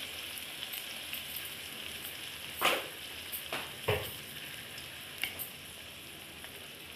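Ground green masala and fried potato pieces sizzling steadily in oil in a wok, with a few sharp knocks of a steel spoon against the pan, about three seconds in and again near five seconds, as turmeric is tipped in.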